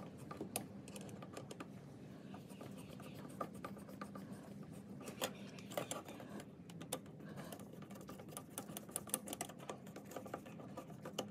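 Light, irregular clicks and scrapes of a Phillips screwdriver turning a screw in a fuel filter's metal mounting clamp, with a low steady hum underneath.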